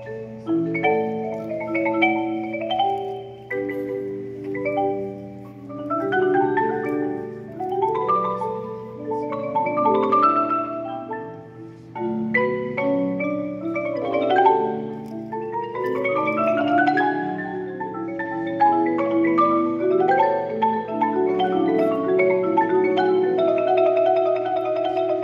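Indoor percussion ensemble of marimbas and vibraphones playing rolled chords, with rising runs of notes sweeping upward, over a steady low hum. Near the end it settles into a sustained rolled chord.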